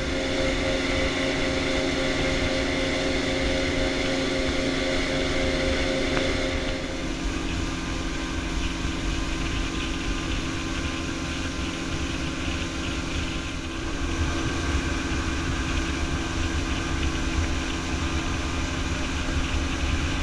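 Evinrude 200 outboard motor running at cruising speed, a steady drone over the rush of wind and water from the boat's wake. Its note shifts about a third of the way through.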